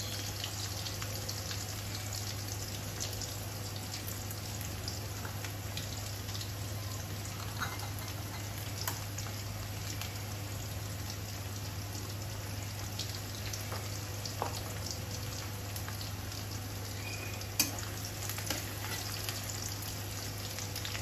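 Sliced onions frying in hot oil in a cast-iron karahi, a steady sizzle with scattered small pops and crackles. A steady low hum runs underneath, and a sharp click comes near the end.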